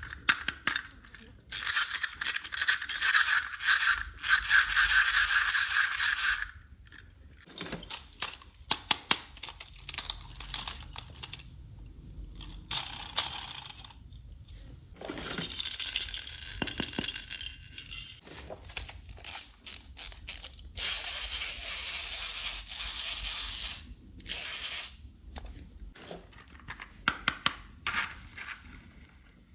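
Toy unboxing handling sounds. There are three long stretches of hissy plastic packaging rustling and crinkling, the first near the start, one in the middle and one a little after two thirds of the way. Between them come many small clicks, taps and rattles of hard plastic toy pieces being handled.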